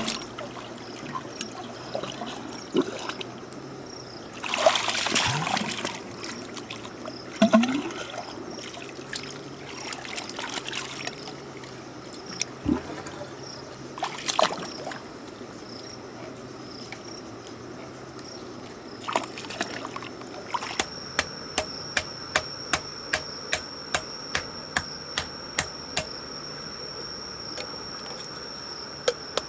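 Water trickling and splashing, with a few louder splashes in the first half. In the last third, a regular series of sharp knocks, a little more than one a second, begins over a steady high whine.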